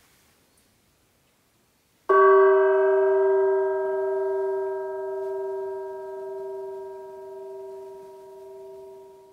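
A bell struck once with a soft mallet about two seconds in, ringing out and fading slowly with a wavering pulse for about seven seconds.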